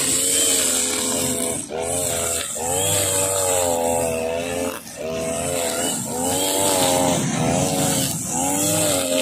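Husqvarna 542RBS backpack brush cutter's two-stroke engine running at high speed, its pitch rising and falling as the throttle is worked, with a few brief drops. The nylon trimmer line hisses as it whips through the grass.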